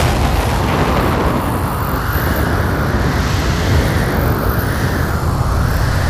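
Designed sci-fi alien-planet ambience: a loud, dense rumble with a whooshing layer that swells and falls in slow waves.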